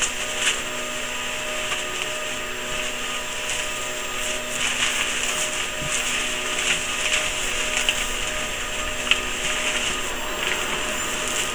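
Plastic packaging and bubble wrap rustling and crinkling as a hard drive is unwrapped, with scattered sharp crackles, over a steady low hum.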